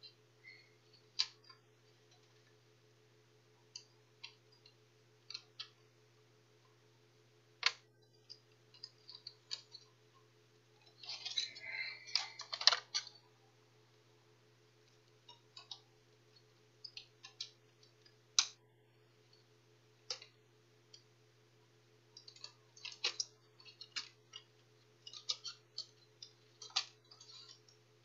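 Scattered plastic clicks, taps and clatter of a laptop being taken apart by hand, as its bottom case comes off and the motherboard is lifted out, with a burst of rattling and scraping about halfway through. A faint steady electrical hum sits underneath.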